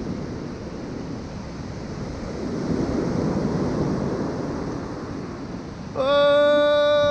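Ocean surf breaking and washing in, with wind buffeting the microphone; the wash swells about halfway through. About six seconds in, a loud, steady pitched tone cuts in and holds, louder than the surf.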